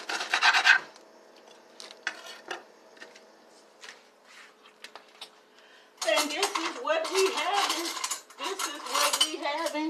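Serving utensils and a knife clinking and scraping against a metal baking pan and dinner plates as food is dished up, with scattered light clinks. From about six seconds in, voices talk in the background.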